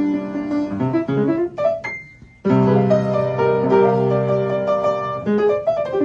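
Piano music playing sustained chords. About two seconds in the sound briefly drops away, then a new chord comes in and the playing carries on.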